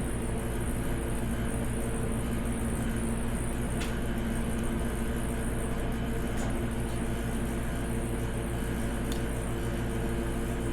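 Steady machine hum with several fixed pitched tones, like a fan or other motor-driven appliance running, with three faint light clicks.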